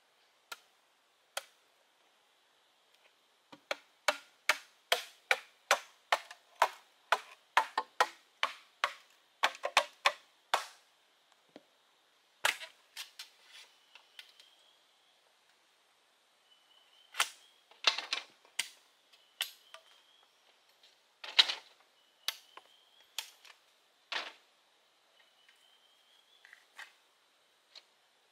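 A run of sharp, hard strikes from a hand tool working bamboo, about two and a half blows a second, then a pause and scattered single blows, one of them much louder. A faint, short rising chirp repeats in the background.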